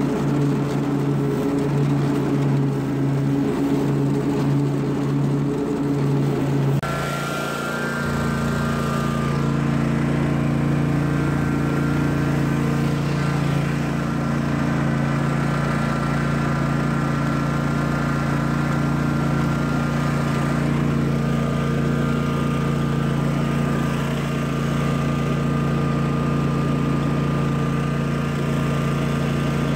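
Lawn mower engine running steadily while mowing, its note changing abruptly about seven seconds in and then holding steady.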